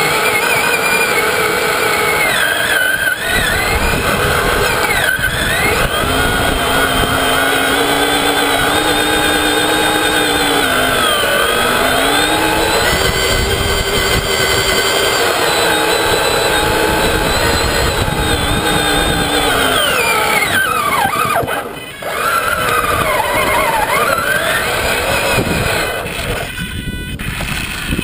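Traxxas Summit RC truck's electric motor and geartrain whining as it drives over sand, the pitch rising and falling with the throttle. The whine drops away briefly a little after two-thirds of the way through, then comes back.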